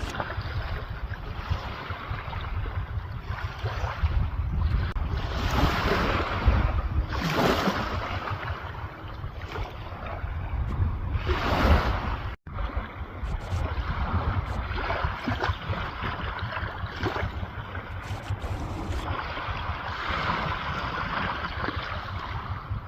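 Sea water washing and splashing with wind buffeting the microphone, swelling in several surges.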